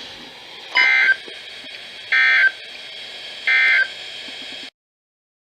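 NOAA Weather Radio SAME data bursts: three short, identical warbling digital tone bursts about 1.3 s apart over steady receiver hiss. These are the end-of-message code that closes a broadcast alert. The sound cuts off abruptly near the end.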